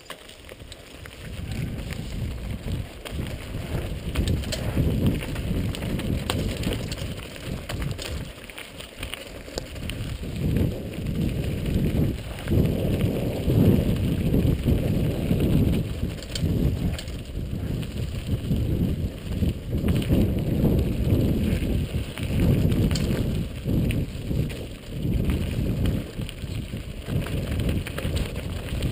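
Mountain bike riding fast down a rough dirt trail: wind rushing over the camera's microphone, mixed with the rattle and knocks of the bike and tyres over gravel and bumps.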